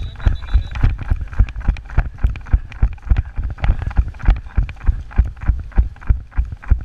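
Running footsteps, about three heavy thumps a second, with gear jostling on each stride.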